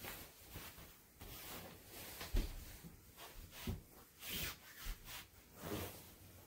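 Quiet rustling and rubbing handling sounds, with a dull thump about two and a half seconds in and short rustles later.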